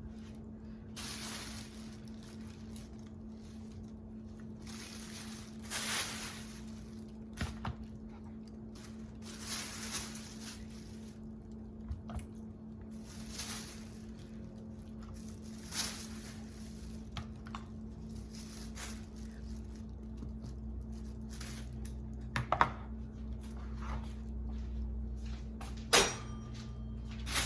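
Raw chicken wings being handled and dropped into a plastic bag of seasoned coating mix: wet squishing and bag rustling in scattered short bursts, over a steady low hum.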